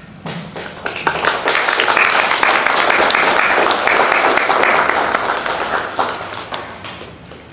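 Audience applauding: the clapping builds about a second in, holds steady, and dies away near the end.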